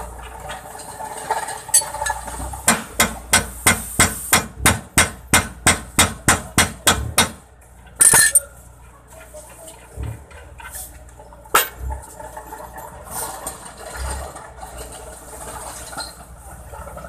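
A hammer strikes the steel parts of a truck's upper control arm and ball joint about fifteen times in a quick, even run, roughly three blows a second, while the new arm is being fitted. A loud short clatter follows, and a single sharp metal knock comes a few seconds later.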